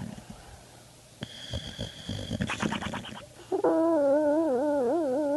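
A sleeping dog snoring: about a second in, one long breath with a high whistling note. From a little past halfway a loud, wavering, voice-like tone that rises and falls takes over and is the loudest sound.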